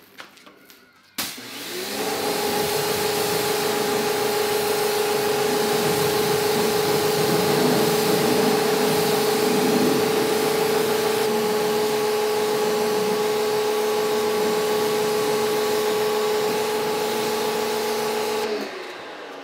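Kärcher K1700 Cube electric pressure washer running with a steady motor hum under the loud hiss of its spray, rinsing cleaner off a car's wheel and tyre. It starts about a second in, its pitch shifts slightly about halfway through, and it stops shortly before the end.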